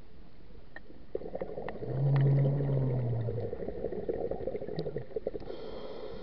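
Scuba diver exhaling through the regulator, heard underwater: a low, slightly falling hum about two seconds in, then a crackling rush of bubbles that fades out after about five seconds.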